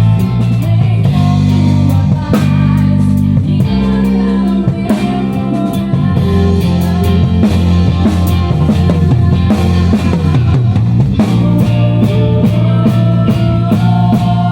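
Band music: drum kit hits with a steady beat over sustained bass notes and guitar.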